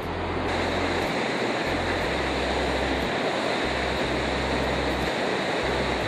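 Elk Falls rushing steadily, an even hiss of falling water.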